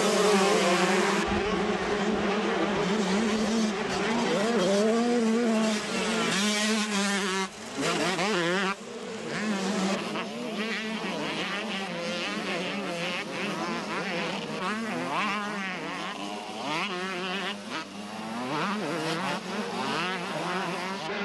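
A full field of 125cc two-stroke motocross bikes racing off the start and through the first turns, many engines revving hard at once with their pitch rising and falling. A short break cuts through the sound about eight seconds in.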